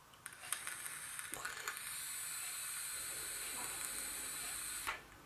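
Vaporesso Drizzle e-cigarette being drawn on, its 1.4-ohm coil firing: a few crackles at first, then a steady high hiss of air and vapour that cuts off suddenly about five seconds in.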